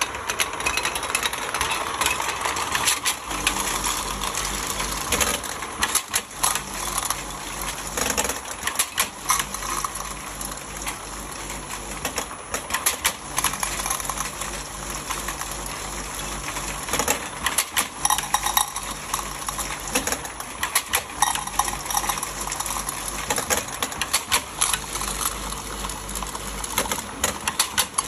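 Empty metal tins clinking and knocking against each other and the guides as a packaging line's rotating unscrambling turntable and conveyor carry them along, with many quick irregular clicks over a steady low motor hum.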